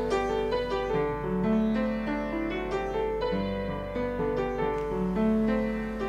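Piano music, a slow line of held notes.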